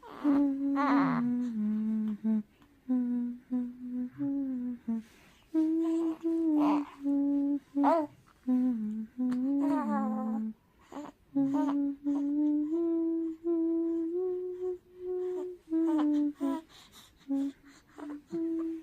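A voice humming a slow, wordless tune: held notes that step up and down in pitch, in phrases with short breaks between them.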